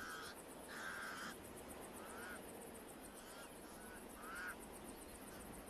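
Pied crows cawing: a run of about eight short, harsh calls, the first two longer than the rest.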